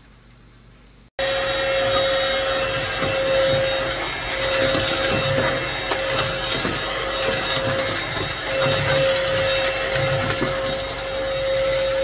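Cordless stick vacuum running steadily on a tile floor: a constant whine over the rush of air. It switches in abruptly about a second in.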